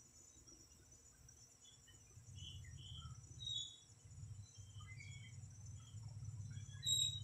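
Crickets and other insects chirping in a steady high chorus, with scattered short chirps and two louder high chirps, one about halfway through and one near the end, over a low hum.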